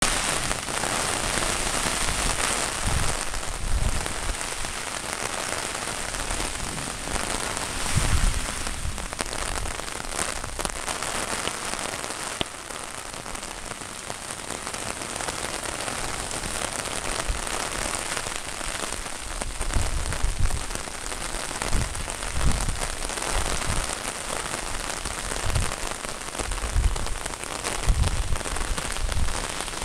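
Steady rain pattering down, with a few short low rumbles now and then.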